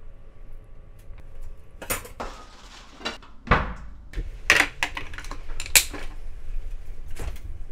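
A spoon clinking and scraping against a china plate of dressed salad, with several sharp clinks spread through.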